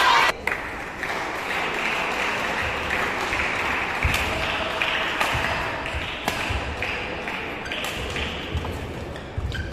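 Badminton rackets striking a shuttlecock in a rally: sharp pings about a second apart, five of them from about four seconds in, over a steady background hum, after a loud burst at the start.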